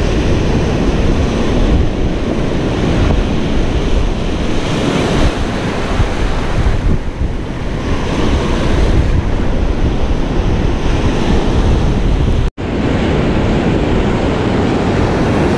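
Ocean surf breaking and washing over the sand around the feet, with wind buffeting the microphone. The sound drops out for an instant about twelve seconds in.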